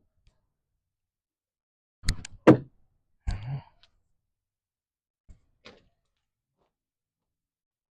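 A car door being worked on a 2017 Chevy Sonic: two sharp latch-and-thunk impacts about two seconds in, a short rustle a second later, then two faint knocks near the end.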